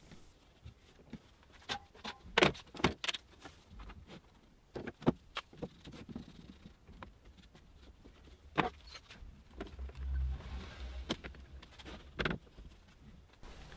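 Irregular sharp clicks and knocks of one-handed bar clamps being set on a glued-up wooden frame and tightened, their bars and jaws knocking against the wood and the bench.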